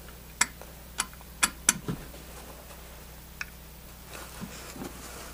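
Four sharp clicks of hand tools and the refrigerant charging manifold being handled and set down on a work table, in the first two seconds, with one softer tap later. Faint rustling of a cloth rag near the end.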